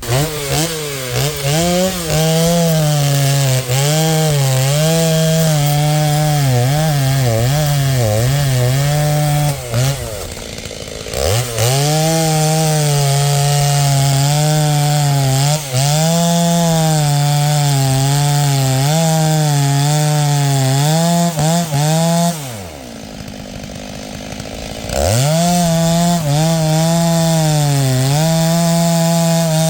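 Stihl MS 290 two-stroke chainsaw bucking maple logs at full throttle, its engine pitch sagging and recovering as the chain bites. It drops to idle twice, about ten seconds in and again about twenty-two seconds in, then revs back up to cut.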